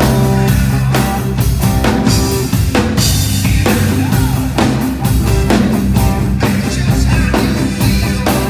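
Live band playing an instrumental passage: drum kit keeping a steady beat with rimshots, over bass and guitar, with no vocals.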